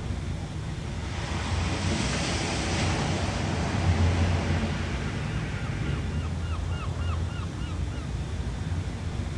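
Ocean surf washing in over a low, steady rumble, with a wave swelling loudest between about two and four seconds in. Later a quick run of about eight short chirps sounds, roughly four a second.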